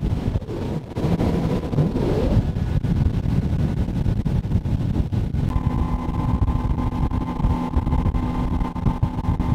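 Motorboat underway at speed, its 200 hp Mercury outboard running steadily under heavy wind rush and water noise on the microphone. A steady higher tone joins about halfway through.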